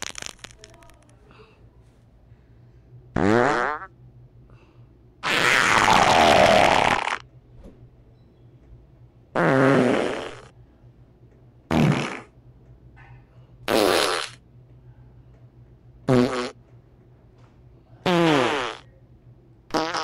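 About eight separate fart sounds, one to two seconds apart. The longest and loudest, about five seconds in, lasts about two seconds. Several of the others fall in pitch.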